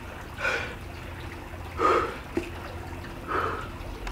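A man breathing hard, three heavy breaths about a second and a half apart, as he suffers a burning pain in his mouth and throat.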